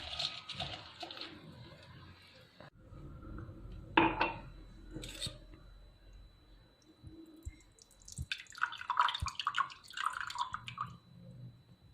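Kitchen handling sounds while a remedy is prepared: scattered clinks and knocks, one sharp knock about four seconds in, and a spell of rapid clattering near the end.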